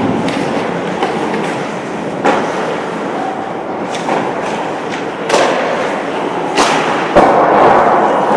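Several sharp knocks and thuds from game play, a few seconds apart, over a steady background noise, with the loudest knock near the end.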